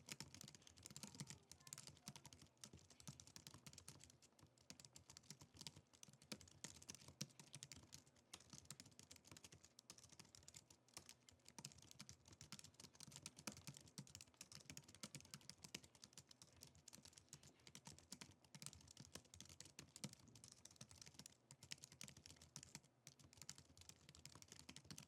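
Quiet, rapid, continuous typing on a Logitech MX Keys keyboard: many soft key taps in quick, uneven succession, at about 104 words per minute.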